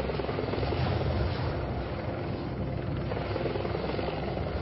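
Helicopter running: steady rotor and turbine engine noise.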